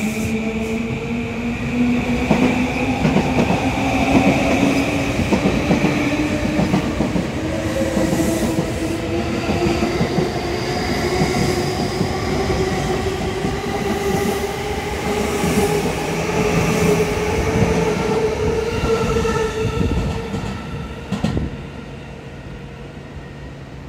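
E235 series 1000 electric train departing: its traction motors give a whine of several tones that rises slowly in pitch as the train gathers speed, over the rumble and clatter of its wheels on the rails. About twenty seconds in the sound drops to a quieter, more distant rumble.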